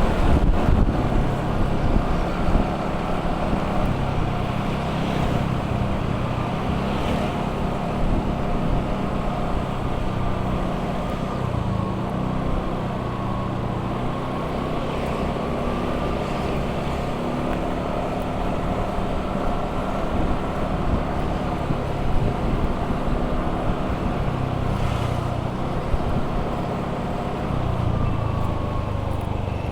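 A steady low engine-like hum with a faint, slowly wavering higher tone.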